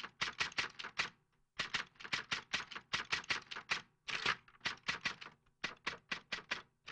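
Typewriter key clicks used as a sound effect for on-screen text being typed out: a quick run of sharp keystrokes, about six a second, with short breaks about a second in and again around four seconds.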